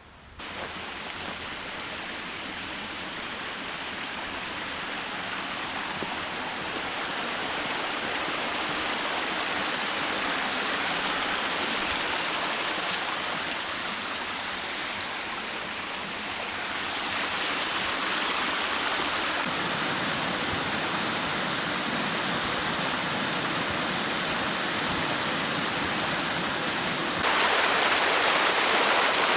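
Mountain creek running over rocks, a steady rush of water that gets abruptly louder near the end.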